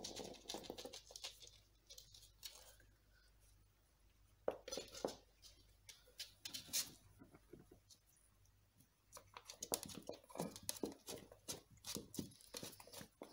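Faint, irregular taps, scrapes and rustles, bunched into flurries: a convulsing cat's paws and claws scrabbling on a wooden floor during a seizure, with a towel rustling against her.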